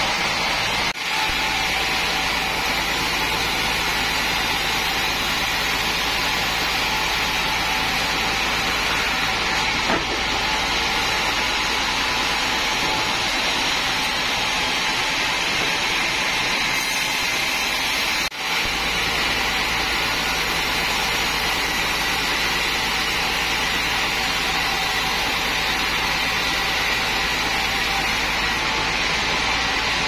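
Sawmill band saw machinery running steadily, a constant loud mechanical whir that dips twice for a moment.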